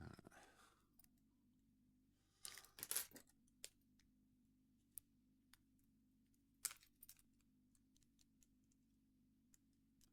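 Faint small metallic clicks and rattles of a rake and tension wrench working the pins of a tiny Zeiss Ikon mini padlock. They come in a few short clusters with single ticks in between.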